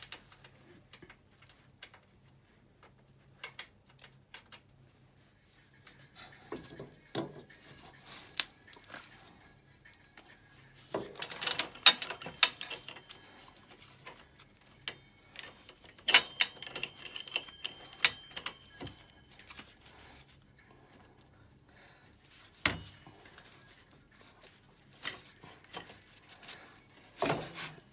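Metal hand tools and ATV rear-axle parts clinking and knocking: scattered sharp clicks, with two runs of ringing metallic clinks in the middle and a couple of single knocks later on.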